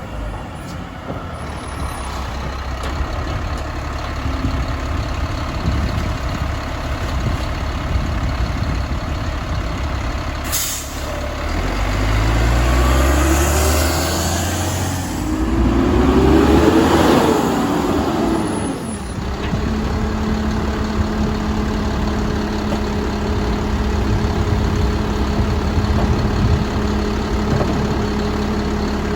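Mack LEU garbage truck with a Labrie Helping Hand side-loader body at work: its diesel engine runs and revs up about halfway through as the hydraulics are worked. There is a short sharp air-brake hiss about a third of the way in, and a steady whine holds through the last third.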